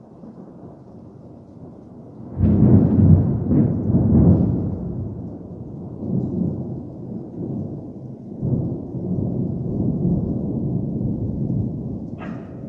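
Thunder: a low rumble that breaks out loud about two seconds in, then keeps rolling with several swells as it slowly eases.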